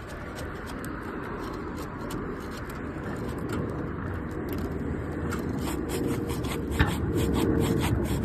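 A tool scraping and rubbing under sealed asphalt roof shingles as they are worked loose, growing louder toward the end.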